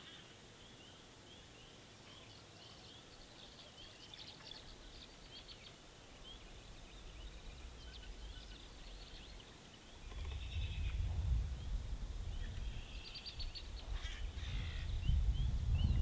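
Spring beaver-pond ambience: a chorus of short, high chirping calls repeating throughout. A low rumble comes in about ten seconds in and keeps growing toward the end.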